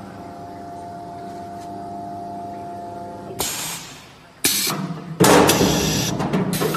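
CNC wood lathe with automatic loading and unloading: a steady machine hum with a whine for about three seconds. Then come short blasts of compressed-air hiss from its pneumatic cylinders as the turned spindle is released and unloaded, the longest and loudest in the last second and a half.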